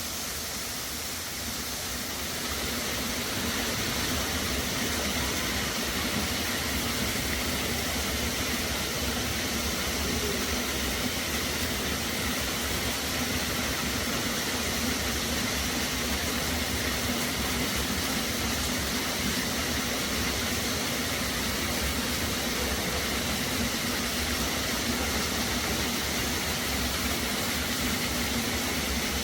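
Waterfall: the steady, even rush of falling water, a little louder after the first few seconds.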